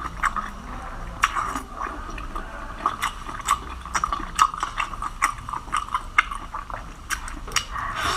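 A person chewing seafood, with many irregular short clicks and smacks of the mouth.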